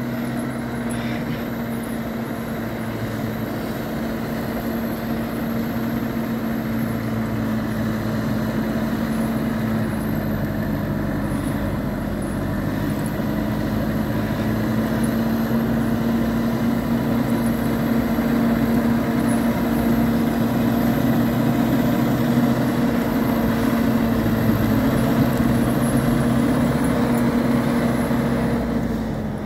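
Valtra N154 tractor's diesel engine running under heavy load at a steady pitch as it struggles through deep snow with its front loader, growing gradually louder as the tractor comes closer.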